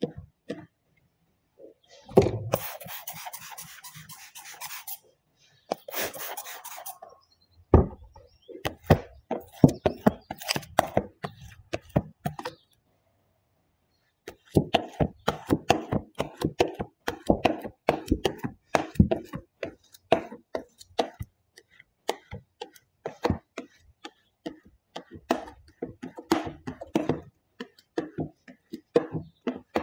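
Rubber squeegee working protection film down over a wet wooden workbench top: a fast run of short rubbing knocks and squeaks, after two longer hissing bursts near the start.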